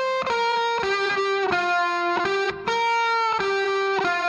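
Background music: a slow melody of held, guitar-like notes played one at a time.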